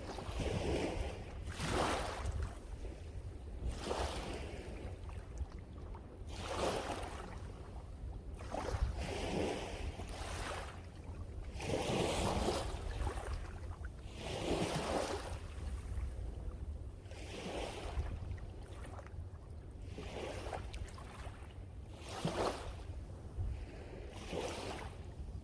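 Sea waves breaking and washing on the shore, one surge every two to three seconds, over a steady low wind rumble on the microphone.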